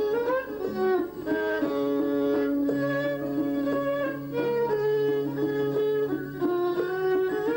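Traditional instrumental music with plucked strings: a melody of short notes moving over long held lower notes.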